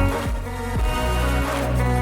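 Background music: an instrumental stretch of an electronic pop song with held synth chords and a steady bass beat.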